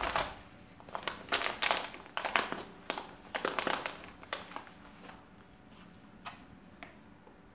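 Foil tea packet crinkling as it is handled and hooked onto a digital luggage scale, in a rapid run of crackles that thins out after about four and a half seconds into a few faint clicks.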